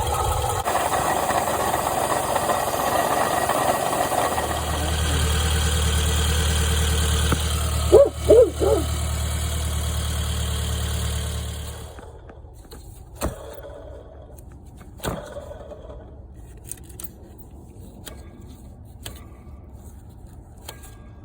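2005 Toyota Camry engine running with the clunking knock that sounds like rod knock or piston slap but that the owner puts down to a bad water pump bearing. About eight seconds in come three short, loud chirps, and a few seconds later the engine stops, leaving only scattered clicks.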